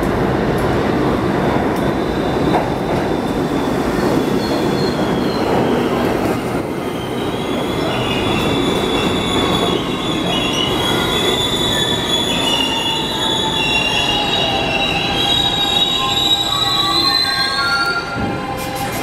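R68A subway train running into an underground station, its running noise joined about seven seconds in by a high, multi-toned squeal as it brakes. The squeal climbs slightly in pitch and ends near the end as the train stops.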